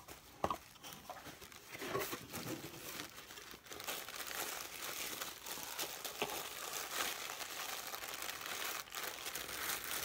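Tissue paper crinkling and rustling as it is unwrapped by hand inside a cardboard box, with scattered sharp crackles. It becomes continuous about two seconds in.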